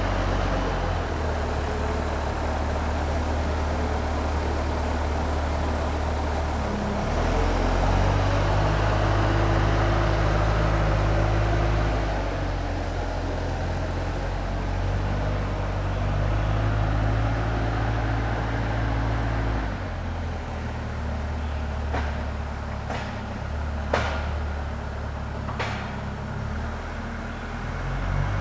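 Engine of a heavy log-handling machine running under load while moving oak logs, its speed stepping up and down several times. A few sharp knocks come in the last third, the loudest about 24 seconds in.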